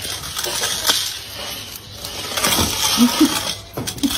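Plastic hula hoop scraping and clattering on stone paving as a dachshund drags it in its mouth, with several sharp knocks spread through.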